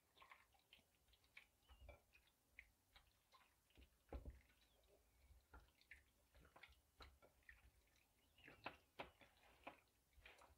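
Faint, irregular wet squishes and clicks of a hand mixing raw chicken pieces in a bowl, rubbing in ground turmeric and salt.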